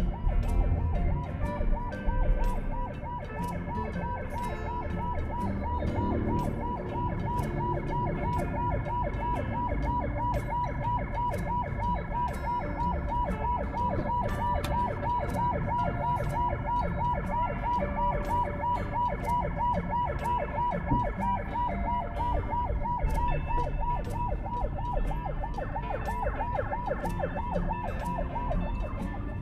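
An emergency vehicle's siren sounding a fast yelp, a rapid, regular rise and fall in pitch that stops near the end, over the low rumble of slow, jammed street traffic.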